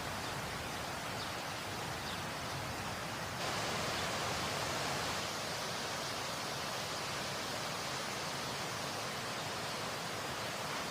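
Waterfall rushing in a steady wash of water noise, briefly louder a few seconds in.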